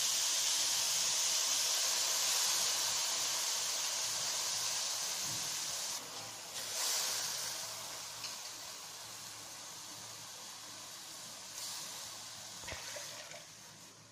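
Rice and diced carrots and corn frying in hot oil in a metal pot: a steady sizzling hiss that gradually fades, with a brief surge about seven seconds in.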